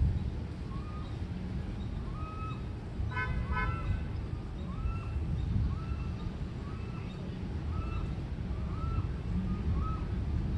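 Outdoor street ambience with a steady low rumble of traffic. A short horn-like toot sounds about three seconds in. A short rising-and-falling chirp repeats about every two-thirds of a second from about a second in.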